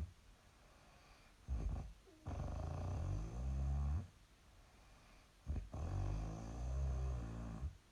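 A young woman snoring in her sleep: two long, low-pitched snores of nearly two seconds each, each coming just after a brief shorter sound, with quiet breaths between.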